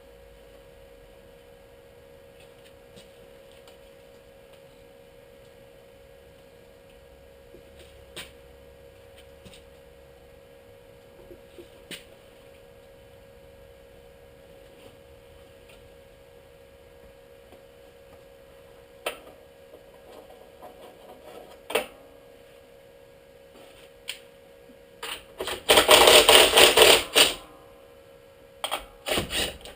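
Sheet-metal fabrication work: scattered clicks and knocks of metal being handled over a steady hum, then near the end about two seconds of loud rapid metal clattering, followed by a few more sharp knocks.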